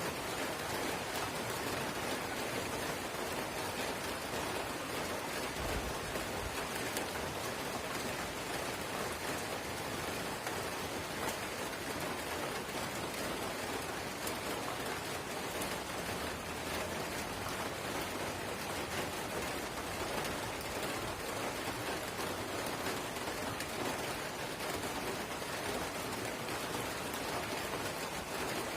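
Steady drizzle pattering on a surface, an even hiss of fine raindrops with scattered small drop ticks.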